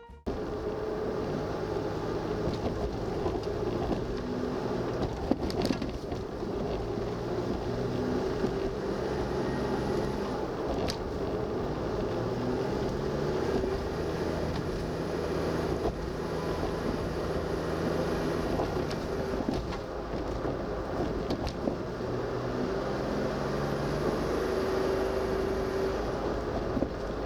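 Suzuki Every DA64 kei van being driven, its small three-cylinder engine and road noise running steadily, with a few sharp knocks about 5, 11 and 21 seconds in.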